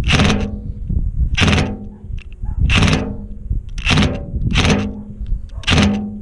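Power driver working at a rust-seized screw in a galvanized furnace vent cap: the motor hums steadily, with six short, sharp bursts of noise about a second apart. The screw is not breaking loose.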